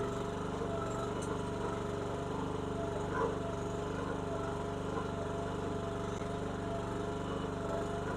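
Engine of a Chinese ride-on mini skid steer running steadily at constant speed while the machine is operated, with one brief knock about three seconds in.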